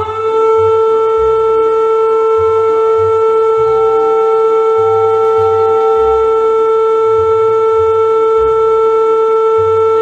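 An emergency-alert siren holding one loud, steady tone after winding up to pitch.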